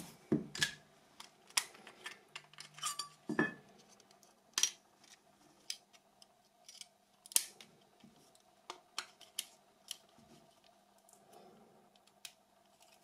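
Irregular sharp plastic clicks and taps from a Nokia 6300 mobile phone being handled, the clicks coming thick in the first four seconds and sparser after that.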